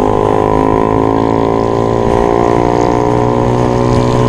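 Motor scooter engine running steadily while riding, its drone rising slowly in pitch as the scooter gathers speed.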